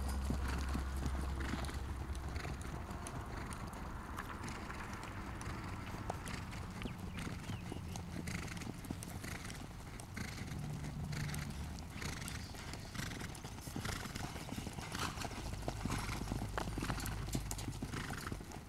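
Hoofbeats of two ridden horses pacing around a grass ring, a quick run of dull strikes that grows plainer from about a third of the way in as they pass close. A low rumble sits under it at the start and again near the end.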